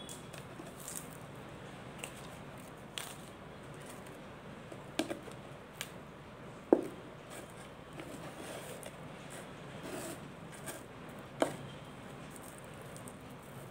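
Fingers crushing and crumbling solid mothball cakes: faint gritty crumbling broken by a scattering of sharp cracks as pieces snap, the loudest about seven seconds in.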